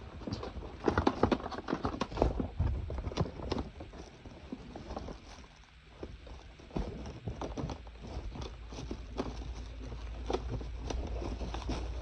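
Irregular knocks, clicks and rustles of hands handling a humidifier and its cardboard and plastic packaging. A steady low hum comes in about halfway through.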